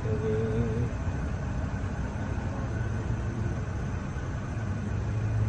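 Steady low hum of an idling vehicle engine, with outdoor background noise.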